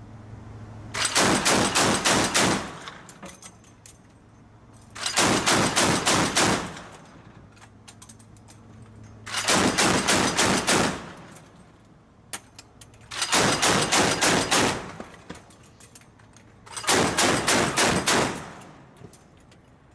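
Mk 38 25 mm machine gun system (an M242 Bushmaster chain gun) firing on automatic in five short bursts of rapid shots, each about one and a half seconds long and roughly four seconds apart.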